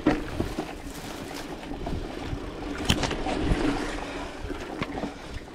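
Mountain bike rolling along a dirt singletrack: tyre noise on the trail with the bike rattling and clicking over bumps, and a sharp knock about three seconds in.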